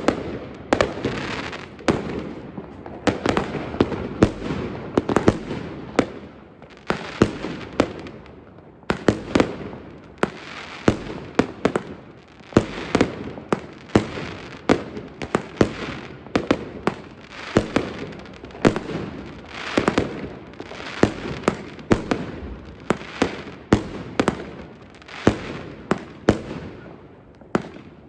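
A Jorge Serafin 25-shot, 30 mm consumer firework battery firing shot after shot. Sharp launches and loud aerial shell bursts come about once a second, often in close pairs, each with a trailing crackle and hiss.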